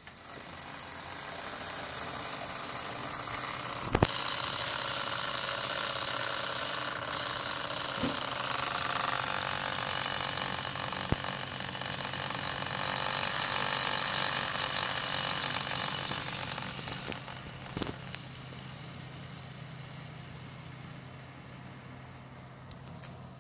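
Antec Kühler 620 liquid cooler's pump making its weird noise over a steady low hum: the noise swells up over the first few seconds, stays loud for about twelve seconds, then fades away near the end, with a few sharp clicks along the way. The noise comes and goes with the system's horizontal or vertical position.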